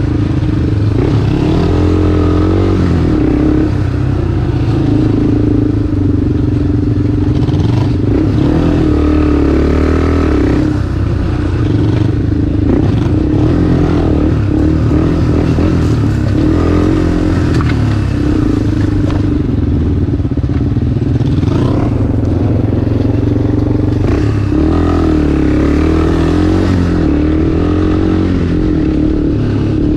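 Cruiser motorcycle engine being ridden hard off-road, its pitch rising and falling again and again as the throttle is opened and closed.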